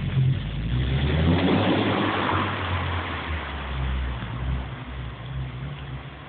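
Volkswagen Golf III GTI's 2.0-litre four-cylinder engine revving, loud at first and dying away over the following seconds.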